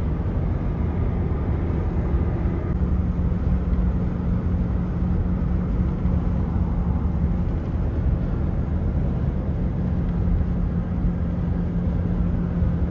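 Steady road and engine noise heard inside a car's cabin while driving at motorway speed, with a constant low drone underneath.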